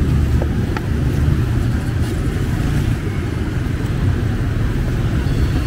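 Steady low rumble of passing street traffic, with a few faint clicks.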